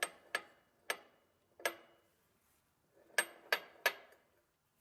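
Sharp metallic clicks from the Shaw Box chain hoist's ratchet and stop pawl as the freshly assembled mechanism is turned by hand, each click ringing briefly. Four clicks come spaced out, then three in quick succession about three seconds in.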